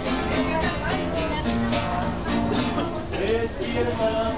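Music playing steadily.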